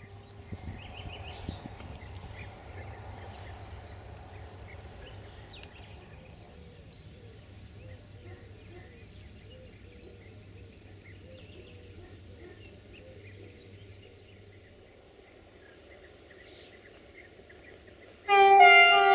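Steady high insect chirring with faint calls behind it. Near the end a GM (EMD) diesel locomotive's horn starts suddenly: a loud, several-toned blast from the approaching train.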